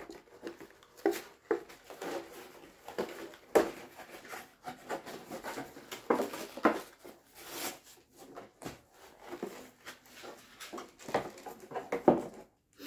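Stiff clear plastic blister packaging and its cardboard backing being handled and pried apart: irregular crinkles, rustles and sharp little clicks.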